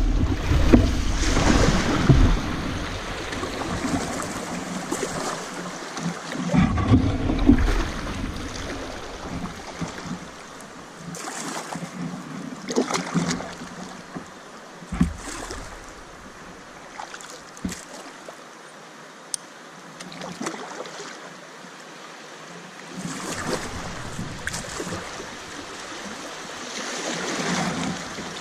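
Kayak being paddled on a river: irregular splashing and rippling of water around the hull and paddle, with a few light knocks. Wind buffets the microphone at times, most heavily at the start and about seven seconds in.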